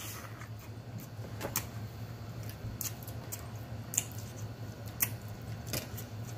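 Chewing and lip-smacking on a bacon burger: scattered sharp wet clicks from the mouth over a low steady hum.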